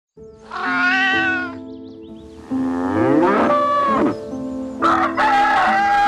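Farm animal calls over background music with held notes: a call of about a second near the start, a call that sweeps up and down in pitch in the middle, and a rooster crowing near the end.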